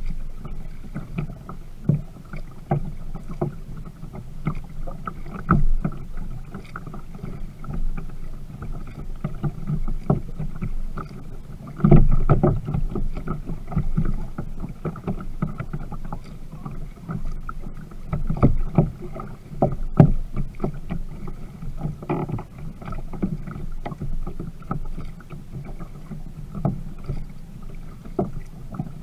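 Water slapping and gurgling against the plastic hull of a Viking Profish Reload sit-on-top kayak as it is paddled, with frequent irregular knocks and clicks picked up through the hull-mounted camera, louder about twelve seconds in and again near twenty.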